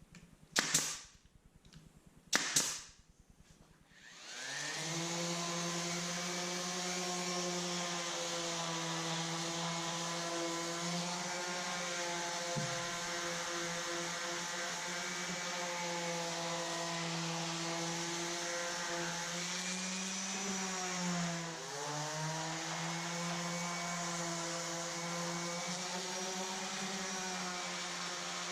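A finish nailer fires twice, two sharp snaps about two seconds apart. About four seconds in, a motor starts and runs steadily at an even pitch, dipping briefly in pitch and loudness near the end.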